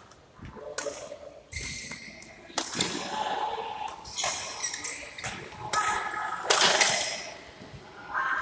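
Badminton rally in an echoing hall: a string of sharp racket hits on the shuttlecock, about one every second or so, each ringing out in the hall, with shoes squeaking on the court floor between them.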